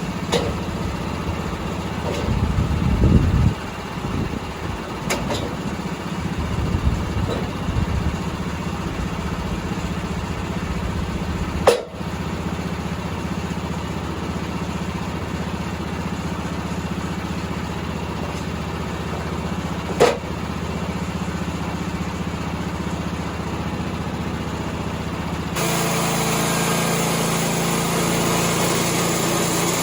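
Portable bandsaw mill's gas engine running steadily, with a few sharp knocks. Near the end the sound steps up, louder and brighter, as the mill comes under more throttle or load.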